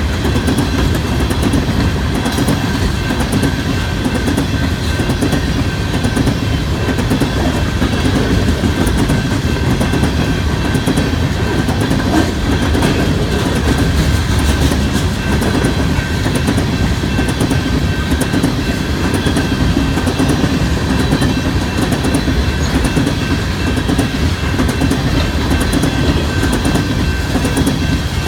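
Empty coal cars of a freight train rolling steadily past, wheels clacking over the rail joints under a continuous heavy rumble, with a faint steady high-pitched ringing.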